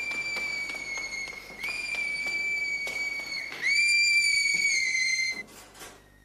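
A young girl screaming: three long, shrill screams, each held steady and falling in pitch at the end, the last one the loudest, stopping about five and a half seconds in.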